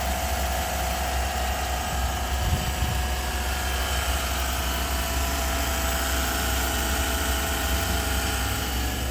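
The 5.3-litre V8 of a 2012 Chevy Avalanche idling steadily.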